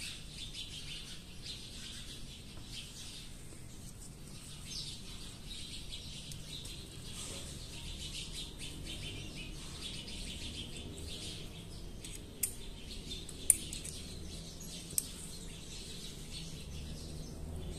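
Birds chirping steadily in the background, with three sharp small clicks of metal gun parts being handled about two-thirds of the way through.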